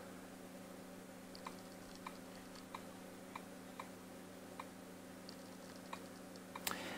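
Faint short key-tap clicks from an RCA Voyager 7 Android tablet's on-screen keyboard, one per letter typed, coming every half second to a second, over a low steady hum.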